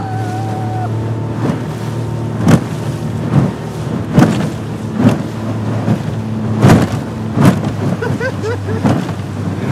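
Outboard motor running hard with a steady hum, while the aluminium jon boat's hull slaps on the chop a little more than once a second.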